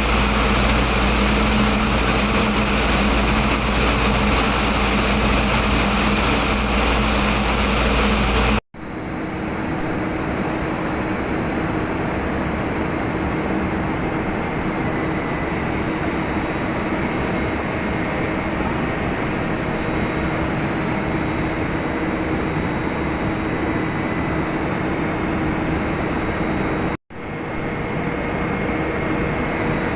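Steady, loud machinery noise with a constant hum and a few held tones. It drops out for an instant and changes character twice, about nine seconds in and near the end.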